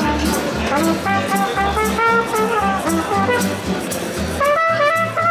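Small jazz combo playing, a trumpet carrying the melody over plucked double bass and guitar.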